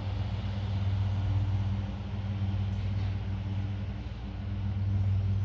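A vehicle engine running steadily: a constant low hum that swells slightly and eases off.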